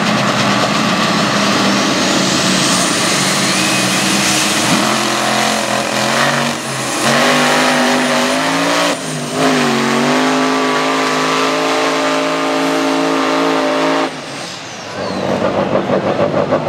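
Modified pulling tractors' engines running at full power, dragging the weight sled down the track. About a second in the pitch climbs, and later the engine note holds steady. Near the end the sound drops and gives way to a Scania pulling truck's diesel running with a fast, even pulsing beat.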